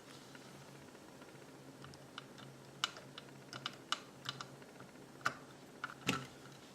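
Irregular light clicks and taps of a small hand tool and screws against 3D-printed plastic parts as M3 screws are driven into the housing, some a little louder than others.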